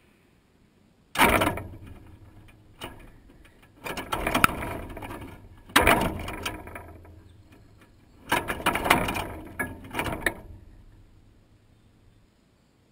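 Blue jay landing on a wire-mesh peanut feeder and working at the peanuts, rattling and scraping the metal mesh. It comes in several bursts, each starting sharply and fading away.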